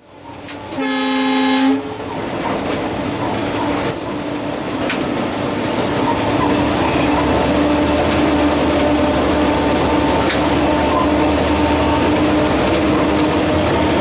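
Cab of a WDP4B (EMD GT46PACe) diesel-electric locomotive running at speed: a single short horn blast lasting about a second, close to the start, then the steady din of the 16-cylinder 710 diesel engine and running gear, with a few sharp clicks.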